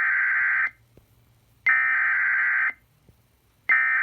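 Emergency Alert System SAME header: bursts of digital data tones, each about a second long and a second apart, the end of one followed by two more. They encode the alert's event and area codes and mark the start of a severe thunderstorm warning.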